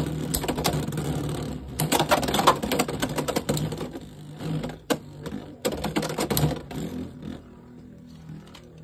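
Two Hasbro Beyblade X spinning tops, Helm Knight and Tusk Mammoth, whirring and clattering against each other and the walls of a plastic Beyblade X stadium in a rapid rattle of clicks. There are louder bursts of clashing about two seconds in and again around six seconds, and the rattle turns quieter in the last second or two.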